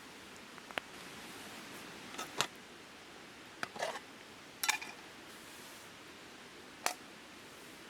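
Wood fire burning with a steady hiss and scattered sharp pops and crackles, a handful of them at irregular moments.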